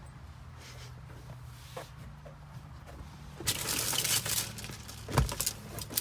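A low steady hum, then crinkling and rustling from about halfway in, with a single knock near the end: someone handling things inside a vehicle cab.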